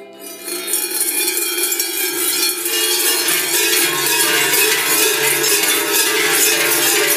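Silvesterchläuse's large cowbells (Schellen) and strings of round crotal bells (Rollen) ringing all together as the wearers shake them. A dense metallic clanging builds up within the first second and then holds loud and steady.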